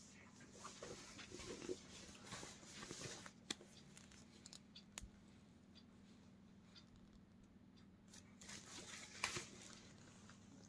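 Faint rustling of denim jeans and a cardboard price tag being handled. The rustling comes in the first few seconds and again near the end, with a couple of soft ticks in between.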